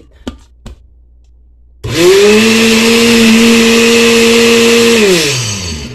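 Countertop blender with a glass jar, its lid set on with a couple of light clicks, then the motor starting about two seconds in. It runs at a steady pitch while puréeing tomatoes, serrano chile and garlic without water, then is switched off and winds down with a falling pitch near the end.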